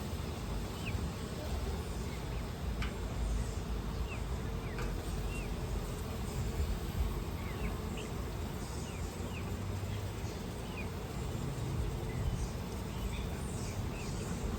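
Honeybees buzzing steadily from an opened hive box that has just been smoked, with scattered short bird chirps over the hum.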